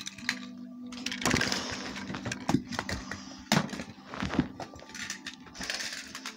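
Plastic toys being swept and knocked over by hand, clattering in a string of sharp knocks and rattles, with a few hissing rushes in between.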